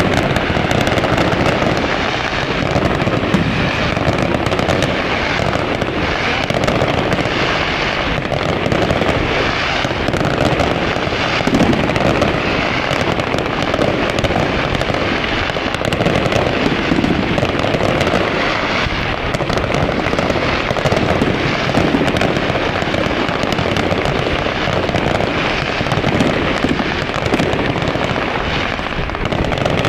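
Fireworks display firing a dense, continuous barrage of aerial shell bursts and crackle, with no break.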